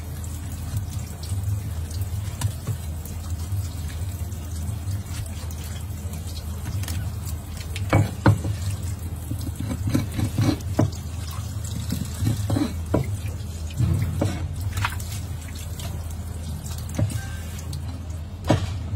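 Tap water running onto a plastic cutting board over a steady low hum. From about eight seconds in, a heavy fish knife chops and knocks against the board as it cuts through a fish head and its bones.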